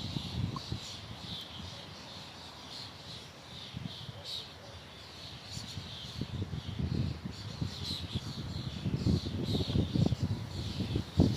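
Small birds chirping in quick, repeated high calls throughout, over wind gusting in a low rumble that eases in the middle and swells again near the end.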